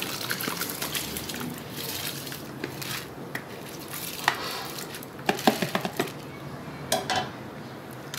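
Soaked rice being pushed with a wooden spoon out of a plastic container and tipped into a large pot of boiling water, with a steady watery hiss under it. Several sharp knocks and clicks of the spoon against the container and pot rim come in a cluster about halfway through and near the end.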